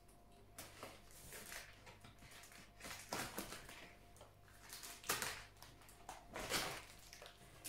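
Cardboard of a large parcel box being cut and pried open along a flap edge: short scraping, rustling bursts every second or two, the loudest about five seconds in and again a little later.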